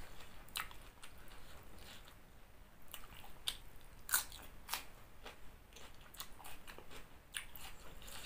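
Close-up crunching and chewing of a crisp raw vegetable: a string of short, sharp crunches at irregular intervals, the loudest about four seconds in.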